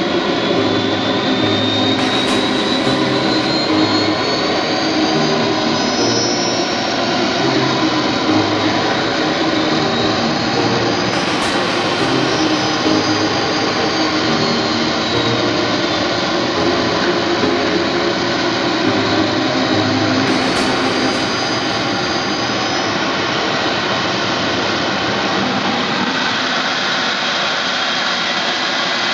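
Small gas-turbine engine of an RC model jet running on the ground: a steady rushing jet noise with a high whine that rises and falls in pitch several times as the throttle is worked.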